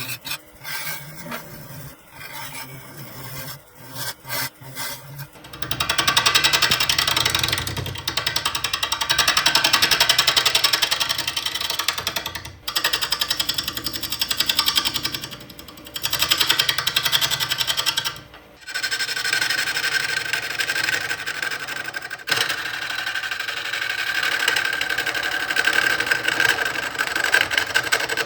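Woodworking power tool cutting or sanding with a fast chattering rhythm, running in several stretches with short pauses, after a few seconds of scattered clicks and knocks.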